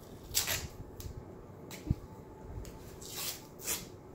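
White athletic tape being pulled off the roll and wrapped onto an ankle as an anchor strip: several short rasping rips of tape, with a light knock near the middle.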